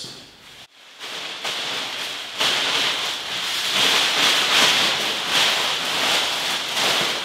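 Thin clear plastic wrapping crinkling and rustling as it is pulled off a new sheet-metal floor pan and bunched up by hand. The sound is faint at first and louder from about two seconds in.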